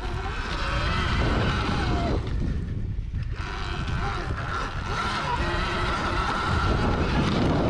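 Sur-Ron electric dirt bike ridden hard through deep sand: the electric motor's whine over heavy wind buffeting on the microphone and the knobby tyre digging in, easing briefly about three seconds in.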